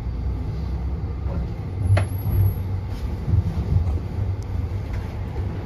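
Tram running along its track, heard from inside the car: a steady low rumble with a sharp knock about two seconds in.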